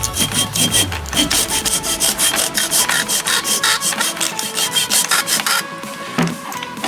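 Hand sawing with quick, even back-and-forth strokes, about five a second, stopping about five and a half seconds in.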